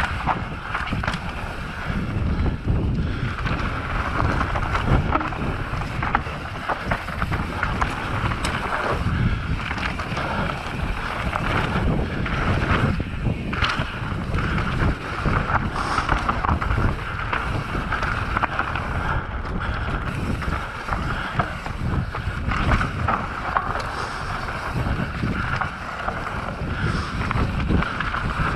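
Enduro mountain bike descending a rough dirt trail at speed: wind rushing over the microphone and tyres running over dirt and roots, with frequent knocks and rattles from the bike over bumps.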